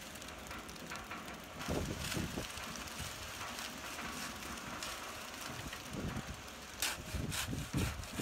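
Concrete mixer truck running while wet concrete slides down its chute into a post hole, with a shovel working the concrete. A few sharp shovel scrapes come near the end.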